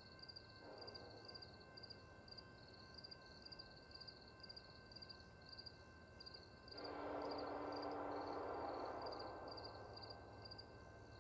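Night insects, crickets or katydids, chirping in steady rhythmic pulses. About two-thirds of the way through, a distant freight train's horn comes in, sounding for a few seconds before fading near the end.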